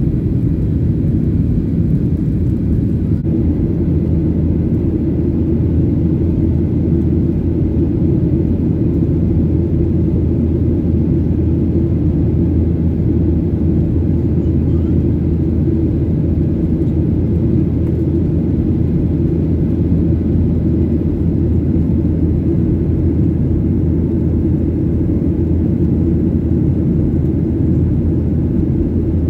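Steady low rumble of jet engines and airflow heard inside an airliner's cabin in flight.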